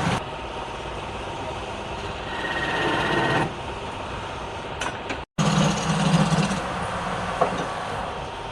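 Wood lathe running steadily, heard in short clips joined by edits; the sound drops out for a split second a little after five seconds in.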